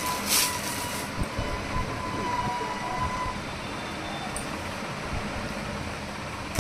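A clear plastic garment packet crinkles briefly about a third of a second in as a dupatta is pulled out of it. Under it runs a steady background rumble and hiss, with a faint thin tone in the first few seconds.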